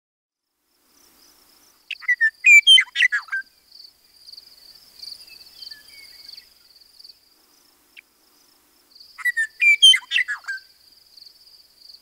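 Western meadowlark singing two flute-like, gurgling song phrases a few seconds apart, each a quick run of whistled notes that ends falling in pitch. A steady high trill runs underneath.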